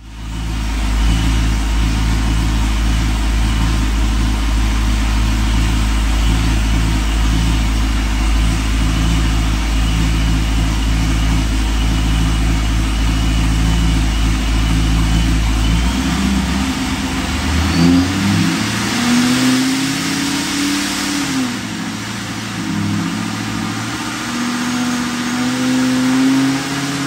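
Supercharged Pontiac G8 GT's 6.0-litre V8, fitted with a ProCharger D1X, running on a chassis dyno. It holds a steady pitch at first. From about two-thirds of the way through, the engine speed rises and falls a few times, then settles steady at a higher pitch near the end.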